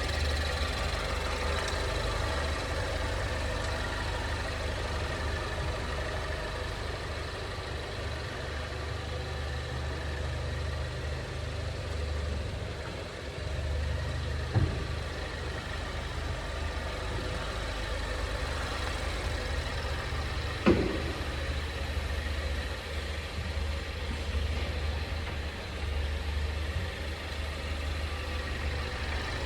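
Steady low running noise of a 2020 Ford Mondeo wagon, with two short knocks from the underbody about six seconds apart, the second louder: the abnormal chassis noise that has appeared on the car a month after delivery.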